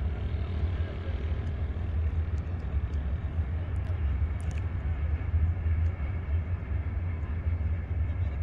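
Steady low rumble of a phosphate freight train hauled by Hitachi-built electric locomotive E-1121 running along the line, with a few faint clicks.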